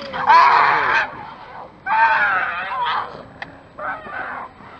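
Barbary macaques screaming in a territorial fight: three harsh, wavering calls. The first and loudest comes right at the start, the second about two seconds in, and a shorter one near the end.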